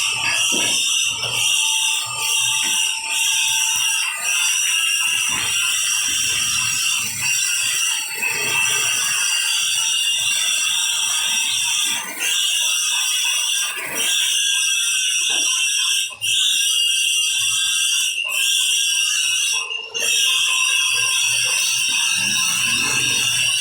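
Electric arc welding: a steady, loud crackling hiss of the arc, broken by a few brief drops a couple of seconds apart.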